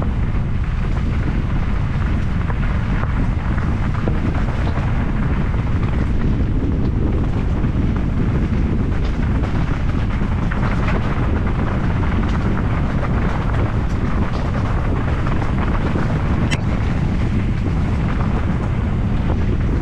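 Trail motorcycle ridden steadily along a rough dirt lane, the engine's low rumble mixed with wind buffeting the microphone. One sharp click near the end.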